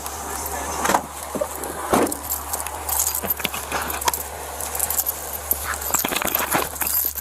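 Irregular rustling, clicking and clattering of gear and clothing rubbing against a body-worn camera, with a few sharper knocks about one and two seconds in, over a steady low hum.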